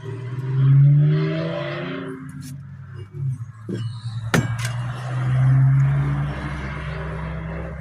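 A motor vehicle engine running, its hum swelling louder twice as if revving or passing, with a single sharp click midway.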